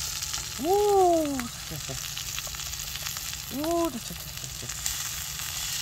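Beef sizzling steadily in butter in a hot frying pan. Two short wordless calls rise and fall over it, about a second in and again near four seconds.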